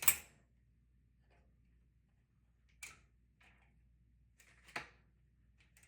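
Tom Thumb toy typewriter being handled: one key strike right at the start, then a few isolated faint clicks of its mechanism with long quiet gaps, and a sharper click near the end.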